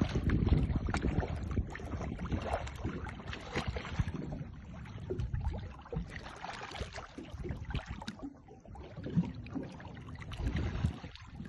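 Sea water splashing and sloshing irregularly around a small boat, with scattered knocks.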